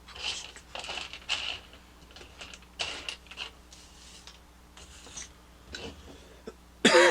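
Small plastic building-kit parts rattling and clicking as they are handled and sifted, in short bursts. Just before the end a person loudly clears their throat.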